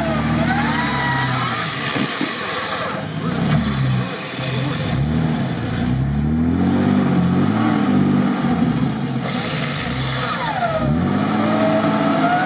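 Jeep Wrangler TJ engine revving up and down under load as the Jeep climbs out of a deep sandy rut. A higher whine that rises and falls in pitch runs over it near the start and again near the end.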